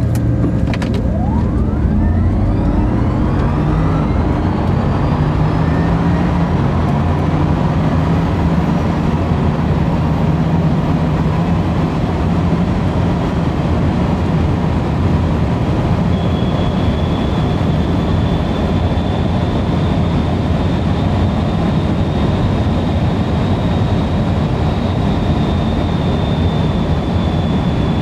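In-cabin sound of the Bugatti Chiron Super Sport and Rimac Nevera at full throttle from a standing start to about 220 mph over a mile. The drivetrain note climbs in pitch over the first several seconds under a loud, steady rush of wind and road noise, and a thin high whine rises in slowly about halfway through.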